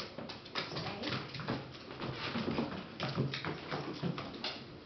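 Dog's claws clicking and tapping on the floor in a rapid, irregular patter as it scrabbles about begging for its food.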